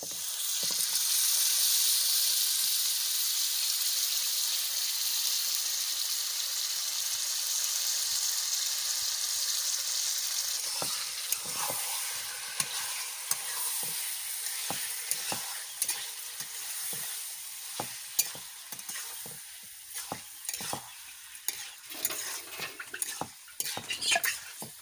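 Yogurt-marinated chicken pieces sizzling loudly as they hit hot oil and fried spice paste in a metal wok, the sizzle slowly dying down. From about halfway a spatula stirs the meat, knocking and scraping against the wok more and more often.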